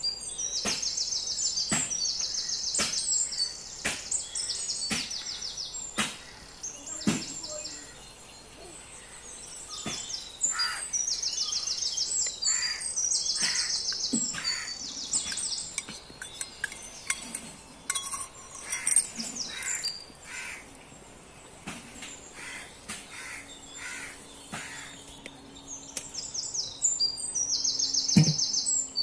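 A bird singing in repeated high, trilled phrases about a second long, in bouts with pauses between them, mixed with scattered sharp clicks and knocks.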